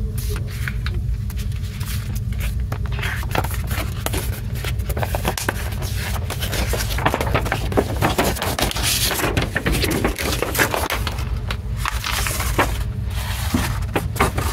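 Paper and glossy card rustling and crackling as folded posters and inserts are handled and unfolded, with many quick irregular crinkles, busiest in the middle. A steady low hum runs underneath.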